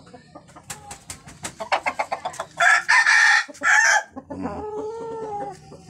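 Rooster crowing: a run of short quick notes builds into a loud drawn-out crow about halfway through, ending in a lower falling tail.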